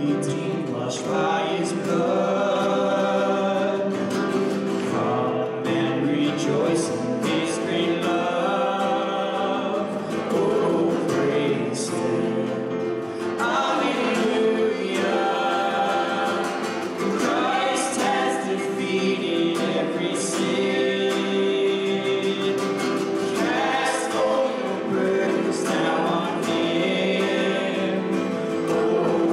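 A worship hymn played on acoustic guitar and mandolin, with a man singing the melody into a microphone.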